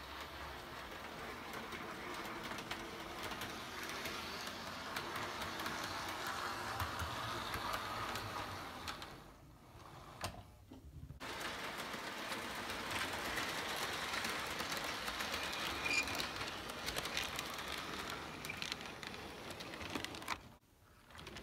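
Model train running on sectional track: a steady small-motor whir with rapid clicking from the wheels on the rail joints. The sound drops out briefly about halfway through and again near the end.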